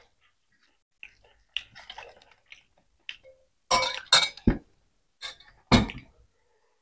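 Steel serving spoons knocking and clinking against stainless steel bowls and plates in a handful of separate sharp strikes, the loudest cluster about four seconds in and another near six seconds, between softer sounds of eating rice by hand.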